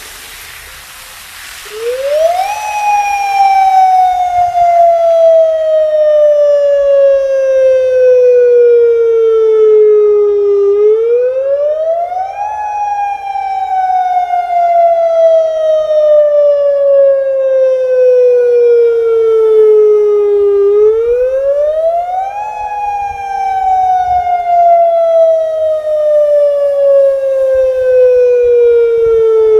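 Federal Signal Modulator 6024B electronic outdoor warning siren sounding its monthly test signal: after a brief hiss, a loud tone starts about two seconds in, rising quickly and then sliding slowly down, and repeats about every ten seconds, three rises in all. A fainter copy of the tone trails a little behind it.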